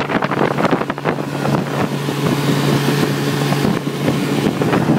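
1954 Evinrude Fleetwin 7.5 hp two-stroke twin outboard running steadily under way, pushing a small inflatable dinghy, with wind on the microphone.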